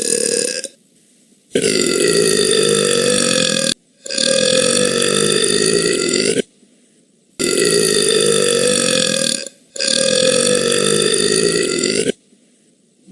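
A woman burping: a string of long, loud, drawn-out burps. One ends just after the start, then four more follow, each about two seconds long with short pauses between them.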